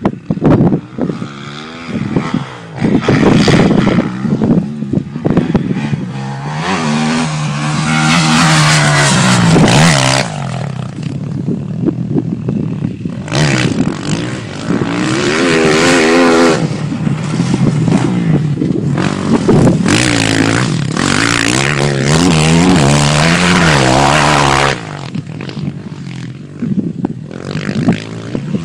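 Dirt bike engine revving hard on a motocross track, its pitch climbing and dropping again and again with throttle and gear changes.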